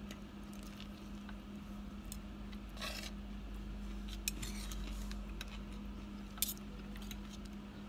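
Fork and spoon scraping and clinking on a stainless steel thali tray as food is scooped up, a few sharp clinks scattered through, over a steady low hum.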